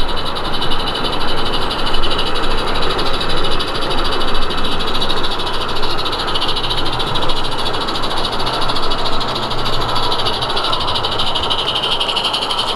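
Live-steam garden-scale model locomotive running under steam, with rapid fast chuffing and steam hiss from its chimney.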